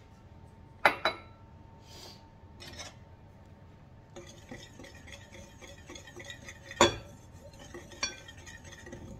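A couple of sharp clinks about a second in. Then a wire whisk stirs dry flour and baking powder in a glass bowl, a few seconds of fine rattling and scraping, with two sharper knocks of the whisk against the glass near the end.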